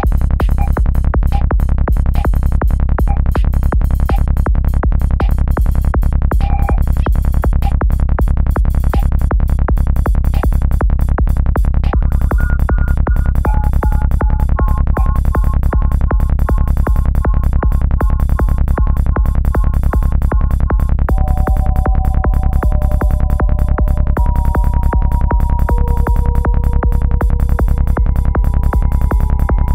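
Electronic dance music with a steady fast beat and heavy bass; a synth melody of held notes comes in about twelve seconds in.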